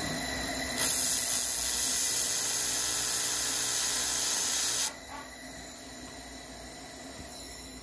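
Handheld fiber laser welder with dual wire feed welding stainless steel plate: a loud, even hiss starts abruptly about a second in, holds for about four seconds, then cuts off sharply when the trigger is released.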